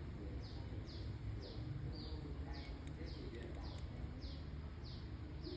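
A small bird calling in the background: a short, falling chirp repeated evenly about twice a second, over a steady low hum.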